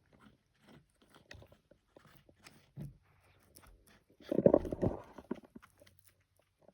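Irregular crunching, chewing-like clicks, with a louder, denser run of crunching about four seconds in that lasts about a second.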